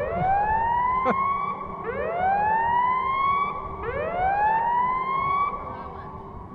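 Power plant's outdoor fire-alarm siren sounding a whoop tone: loud rising sweeps that climb and level off, repeating about every two seconds, fading away near the end. It follows a spoken "Attention, fire alert" announcement, and the listeners take it for a test.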